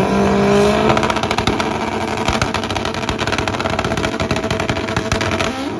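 Drag-racing motorcycle engine held at steady high revs on the starting line, with a rapid crackle running through it that stops near the end.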